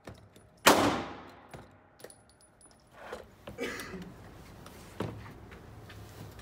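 A single gunshot less than a second in, with a long echoing tail off the hard walls of an indoor range. Then comes a run of clicks, knocks and a thump as the latches of a plastic Plano hard rifle case are undone and its lid is lifted open.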